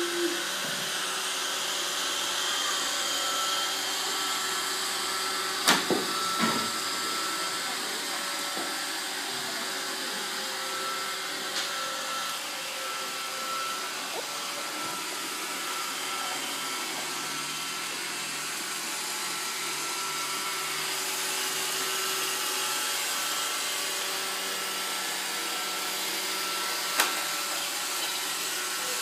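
Roomba robot vacuum running with a steady whir, with a few sharp knocks, two about six seconds in and one near the end.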